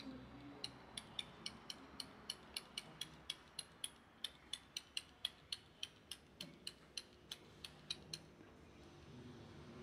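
Hand-held suction pump on a plastic cupping set being squeezed over and over on a cup's valve, drawing a vacuum in the cup: a quick, even run of sharp clicks, about three or four a second, stopping near the end.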